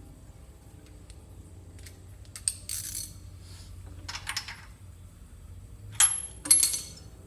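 A few short metallic clinks and rattles of small metal objects being handled, the two loudest about six seconds in.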